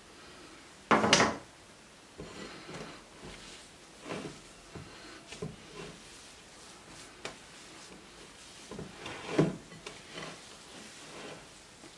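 Hands kneading a dough of boiled mashed potato and flour in a glass bowl: soft squishing and rubbing with scattered light knocks and scrapes. The loudest handling sounds come about a second in and again about nine seconds in.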